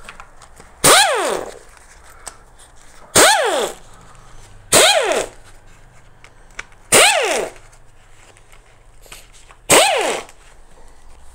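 Small impact wrench run in five short bursts, each about half a second, with a whine that rises and falls in pitch over its hammering, loosening bolts on the top of a DW12 2.2 HDi diesel engine's cylinder head cover.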